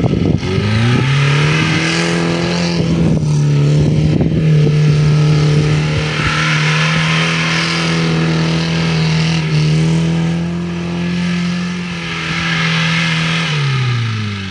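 Lada Zhiguli's four-cylinder engine revved up about a second in and held at high, steady revs as the car spins doughnuts on a grass field with its wheels spinning. The noise swells several times as it circles, and the revs drop away near the end. A few sharp knocks come at the start.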